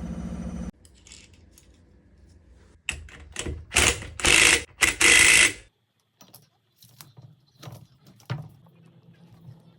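Workshop sounds of hands-on engine assembly: a steady hum cuts off just under a second in, then a few loud, harsh rasping bursts, followed by scattered light clicks and knocks of small metal parts and tools.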